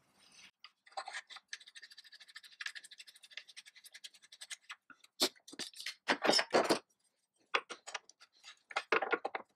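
An AR-15 barrel nut being spun by hand onto the upper receiver's threads: rapid light metallic scratching and ticking. A few louder clicks and clacks follow in the second half.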